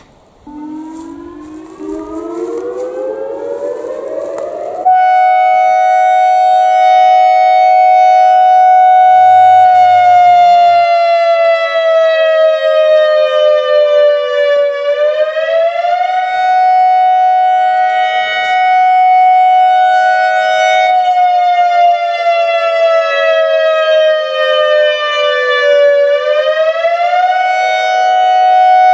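ACA Alertronic AR-1600 electronic storm siren sounding. It starts softly and glides up in pitch for about five seconds, then jumps to full loudness on a steady tone that twice sinks slowly in pitch and climbs back.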